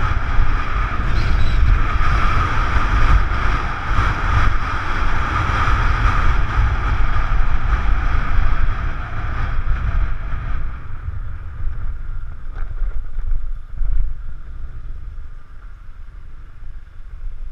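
Motorbike engine running steadily under way, with wind rumbling on the camera's microphone; the engine note and wind ease off about two-thirds of the way through as the bike slows down.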